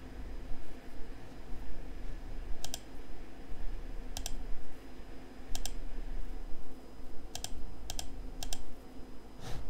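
About seven separate sharp clicks of computer input, spaced a second or so apart with a quicker run near the end, over a steady low hum.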